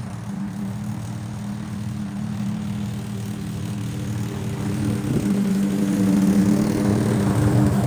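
Lawn mower's small petrol engine running steadily, growing louder about five seconds in.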